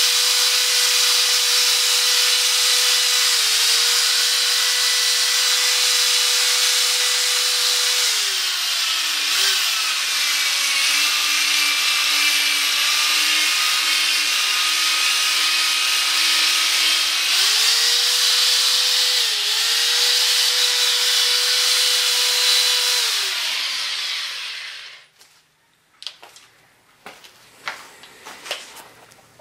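Electric drill spinning a P800 sanding disc against a plastic headlight lens, wet-free sanding of the yellowed lens. The motor whine drops to a lower pitch for several seconds in the middle and then picks up again, before winding down and stopping near the end, followed by a few faint knocks.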